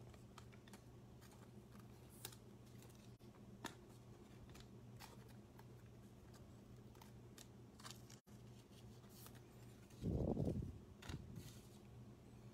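Trading cards being handled and slid into plastic sleeves: faint scattered clicks and rustles over a low steady hum, with one louder low thump about ten seconds in.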